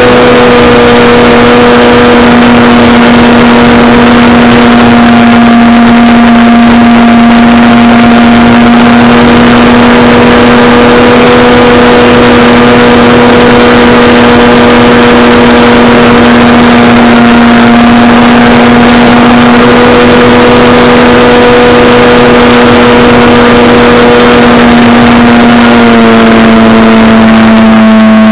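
Electric motor and propeller of a Tidewater RC seaplane, heard up close from its onboard camera in flight: a loud, steady buzzing drone over a rush of air noise. The pitch drops a little near the end as the throttle eases.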